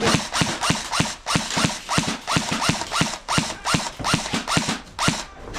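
Airsoft electric rifle fired in quick semi-automatic shots, about three or four a second. Each shot is a sharp clack followed by a short falling whir.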